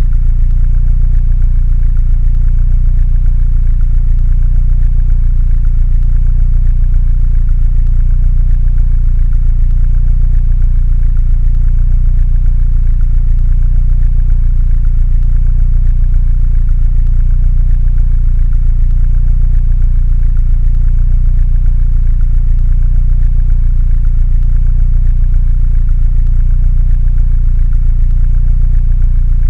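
Mini Cooper engine idling: a low, steady rumble that does not change.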